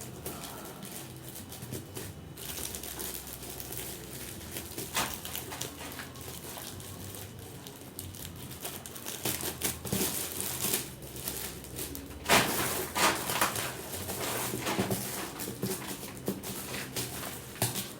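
Gift wrapping paper being torn and crinkled as a present is unwrapped, in irregular crackling bursts that grow busier and louder about halfway through.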